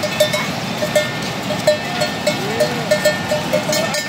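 Livestock bells on a flock of sheep or goats clanking repeatedly at an uneven pace, about four or five strikes a second, as the animals move.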